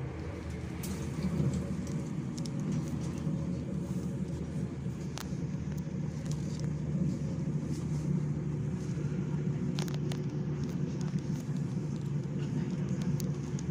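Hamburg U-Bahn DT4 train running at speed, heard from inside the car: a steady low rumble and hum from the wheels and running gear, with a few sharp clicks.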